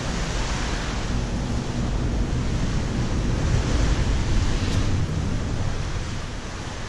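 Steady rushing wind noise on the microphone, with a deep rumble.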